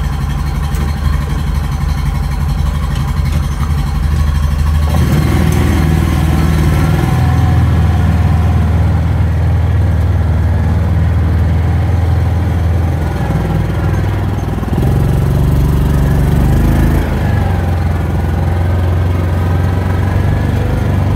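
Engine of a small utility vehicle running steadily while driving. It picks up about five seconds in as the vehicle pulls away, and eases off and picks up again around the middle.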